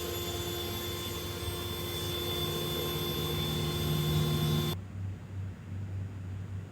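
Steady mechanical whirring with a constant hum that cuts off suddenly near the end, leaving a low, pulsing rumble.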